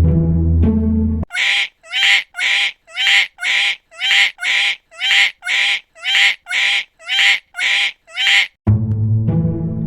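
A run of about fifteen identical duck quacks, about two a second, each a short nasal call falling in pitch at its end. Background music with timpani and plucked strings plays before the quacks start, about a second in, and returns near the end.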